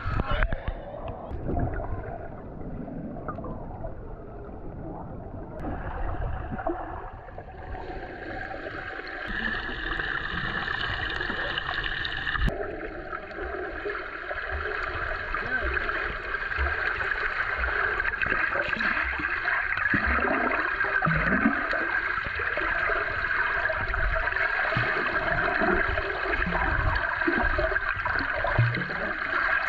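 Water sloshing and gurgling around a snorkeller, a steady muffled wash with no clear single event.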